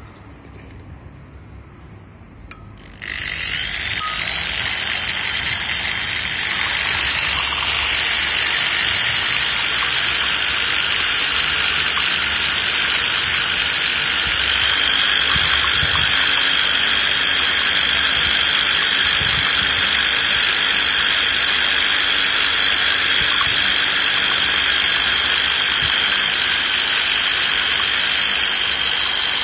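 Small electric motor of a stirrer switching on about three seconds in and then running steadily with a high whine as it churns oil in a glass beaker. The whine rises in pitch soon after start-up and shifts again about halfway through. This is the stirring stage of mixing a bleaching agent into distilled used engine oil.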